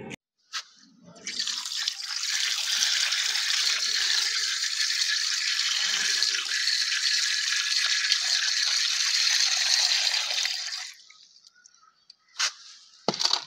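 Tap water pouring into a steel bowl of raw fish pieces as they are rinsed by hand, a steady splashing that stops about eleven seconds in. A couple of sharp knocks follow near the end.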